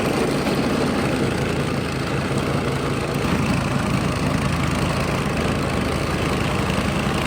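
Snowblower engine running steadily as snow is cleared.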